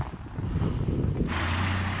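Wind buffeting the microphone in low gusts. Just over a second in, a steady rushing vehicle noise with a low hum starts suddenly and carries on.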